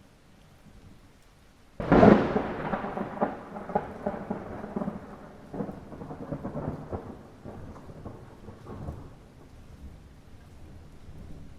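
Light rain, then a sudden clap of thunder about two seconds in. It rolls and crackles for several seconds and fades away, leaving the rain.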